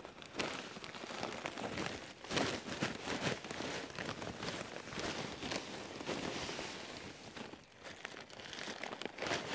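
Dry fallen leaves being shaken and poured out of a paper yard-waste bag, the paper crinkling and the leaves rustling and crackling, with a short lull a little before eight seconds in.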